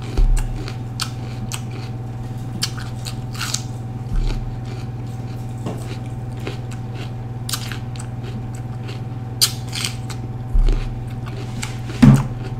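Chewing raw orange bell pepper with a full mouth: an irregular run of crisp, wet crunches.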